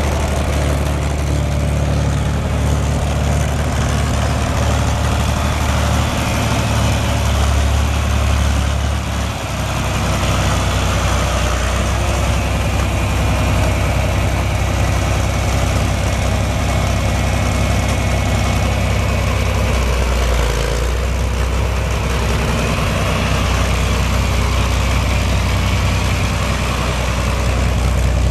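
John Deere 4020's six-cylinder diesel engine running steadily at idle, its low note shifting slightly about a third of the way through and again about two-thirds through.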